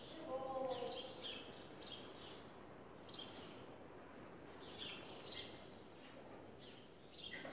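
Small birds chirping faintly, short high calls every second or so, over a steady background hiss.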